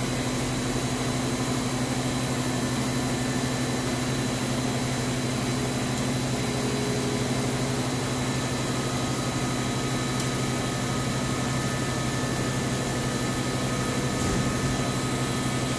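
Mazak VTC-20B vertical traveling-column machining center powered up, giving a steady low hum with a hiss over it while its column is jogged by the handwheel.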